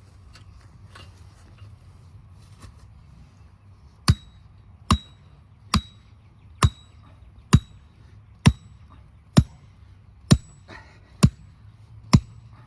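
Steady hammer blows on a metal tunnel ground post, driving it into the ground: about ten sharp strikes a little under one a second, starting about four seconds in, the first few with a short metallic ring.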